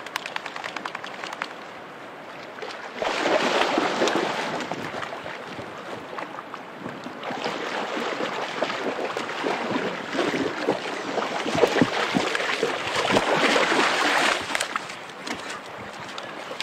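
Water of a shallow stream splashing as a dog wades through it carrying a salmon, with louder, rougher splashing about three seconds in and again from about seven to fourteen seconds.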